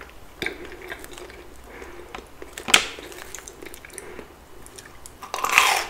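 Close-miked eating sounds: chewing and biting into McDonald's chicken nuggets, with scattered soft crackles and one sharp click a little under three seconds in, growing louder near the end.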